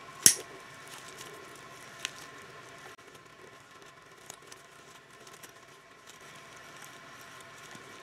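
Chain breaker being cranked to press a rivet out of a bicycle chain: a sharp metallic click about a third of a second in, a weaker one about two seconds in and a faint one later, over a faint steady hum.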